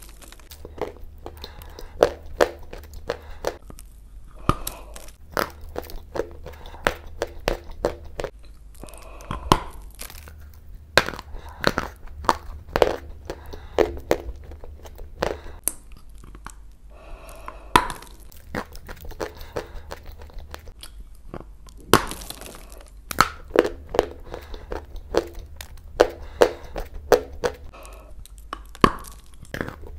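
Chunks of Turkistan clay being bitten and chewed: many sharp crunches and cracks in quick clusters, with short pauses between bites.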